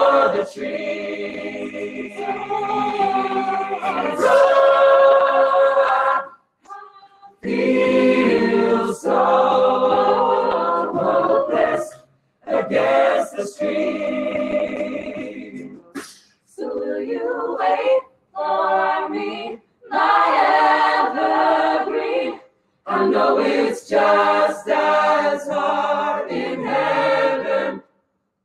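Mixed-voice a cappella group of men and women singing a song in several parts, without instruments. The singing is broken by several brief, abrupt silences.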